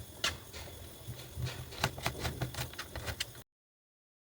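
Knife chopping vegetables on a cutting board, irregular quick taps. The sound cuts off abruptly a little after three seconds in.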